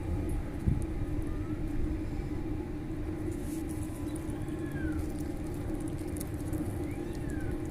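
Steady low background rumble, with a few faint short whistles that fall in pitch and scattered faint ticks.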